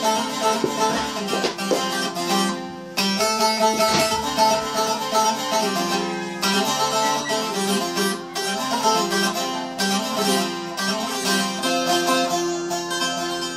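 Bağlama (Turkish long-necked saz) played solo: a plucked, fast-moving folk melody with no singing.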